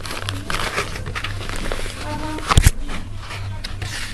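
Foam packaging insert and cardboard box handled by hand: irregular rustling, scraping and small clicks, with one sharp knock about two and a half seconds in, over a steady low hum.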